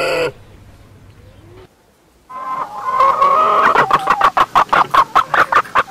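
A pig grunt ends just after the start. From a little over two seconds in, a hen clucks in a quick, regular run of sharp clucks.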